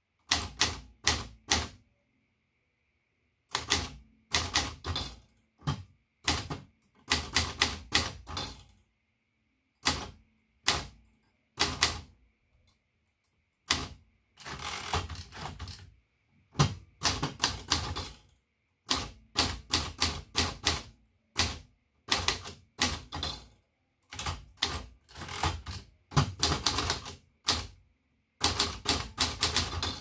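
1967 Facit 1620 manual typewriter being typed on: rapid runs of sharp key and typebar strikes in uneven bursts, with short pauses between words and lines.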